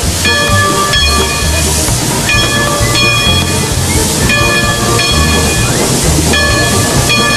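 Climax geared steam locomotive heard from inside its cab: a loud, steady hiss of steam, with a low pulsing beat under it and a pitched ringing tone that comes and goes roughly once a second while the engine works.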